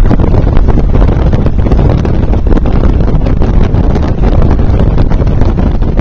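Strong wind buffeting the microphone: a loud, steady low rumble broken by frequent crackles.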